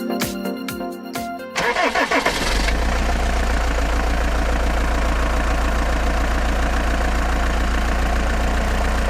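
Music for about the first second and a half, then a diesel truck engine cranks, catches and settles into a steady, deep idle.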